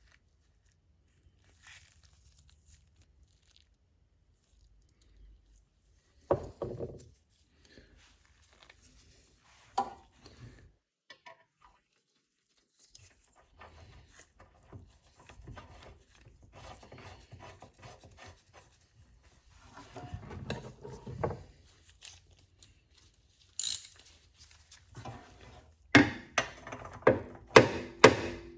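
Hand work on a small engine's parts: scattered knocks and clatter of tools and metal parts, a stretch of rubbing and fiddling, then a quick run of sharp clicks and clanks near the end.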